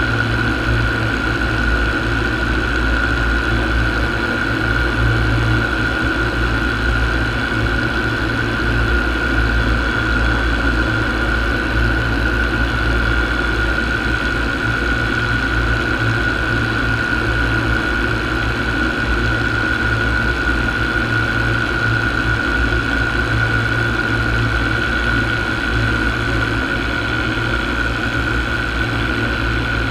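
Paramotor engine and propeller running steadily in cruising flight: a constant high whine over a low rumble, with wind noise on the microphone.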